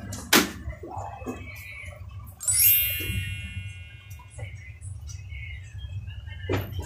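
A bright, twinkling chime sound effect starts suddenly about two and a half seconds in and rings away over about a second, over a steady low hum. A short knock comes near the start and another near the end.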